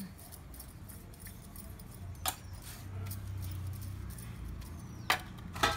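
Steel utensils being scrubbed and handled by hand: light scraping with a few sharp metallic clinks, one about two seconds in and two close together near the end.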